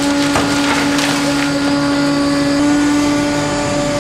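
Steady drone of a fishing boat's machinery, a constant low hum that shifts slightly about halfway through, with a few knocks in the first second as the catch is handled.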